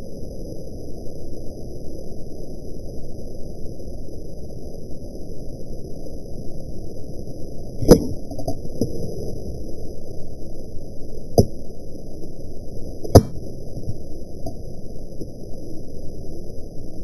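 A steady low, dull rumble of noise, broken by three sharp, loud cracks: one about eight seconds in, another about three and a half seconds later, and a third about two seconds after that.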